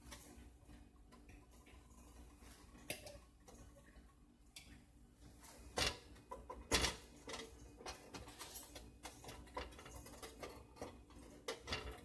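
Faint scattered crackling and ticking of coconut oil hitting and melting in a hot nonstick frying pan, with two louder knocks about six and seven seconds in as the lump of oil goes into the pan.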